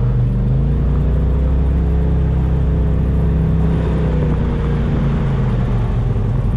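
Polaris RZR side-by-side engine running steadily as the vehicle drives along a sandy trail, its pitch holding nearly even.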